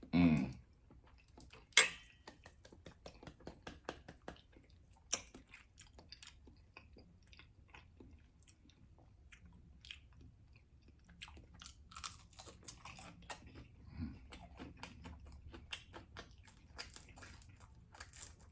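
A person chewing and biting food close to the microphone, with wet mouth smacks and small clicks throughout. One sharp, loud click comes about two seconds in.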